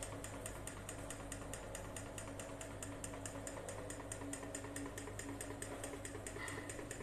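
Antique kerosene-burner-driven brass fan's small piston engine running, giving an even, rapid mechanical clicking at about six ticks a second over a low steady hum.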